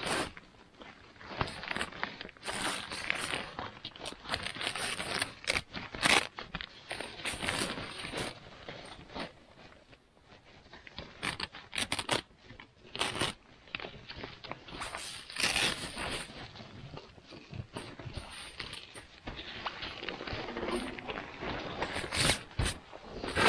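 Handling noise as a winter tent's door is fitted: irregular scraping and rustling with scattered sharp clicks, stopping and starting in short spells.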